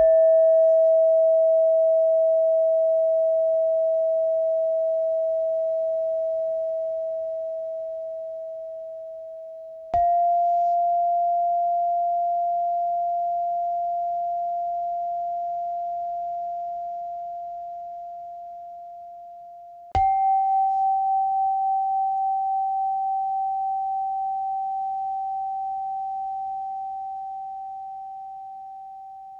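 A bell-like meditation tone struck three times, ten seconds apart. Each strike leaves a single pure ringing tone that slowly fades, and each is a step higher in pitch than the one before. The strikes cue the changes between breathing in, breathing out and holding the breath.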